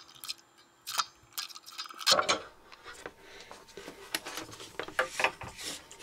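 Small clicks, taps and scraping as a soldering iron tip is drawn along heat-shrink tubing on a spliced coax cable and the cable is handled over a wooden block. The noises come in a busy run from about two seconds in.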